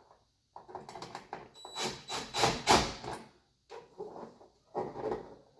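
Handling noises at a metal fluorescent light fixture: scraping, rustling and light knocks in two irregular bursts, one in the first half and one near the end.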